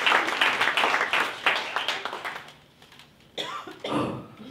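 Audience applause dying away, thinning to a few scattered claps, followed near the end by a brief bit of a man's voice through a microphone.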